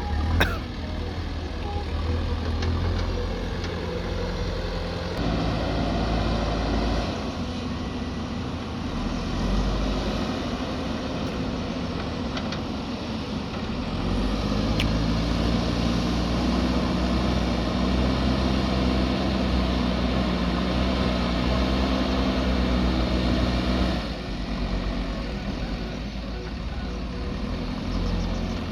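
JCB backhoe loader's diesel engine running while the machine works, its speed and load shifting. There is a sharp knock about half a second in. The engine runs harder from about halfway through and drops back a few seconds before the end.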